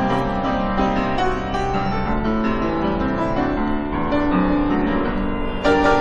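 Grand piano playing a slow run of notes and chords. Near the end a sudden, louder struck sound rings out.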